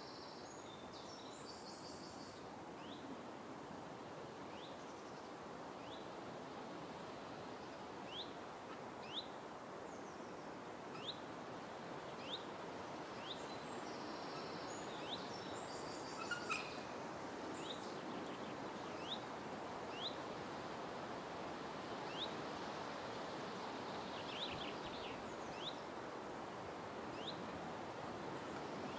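Steady noise of a mobility scooter rolling along a gravel path, with a bird giving short high chirps every second or two.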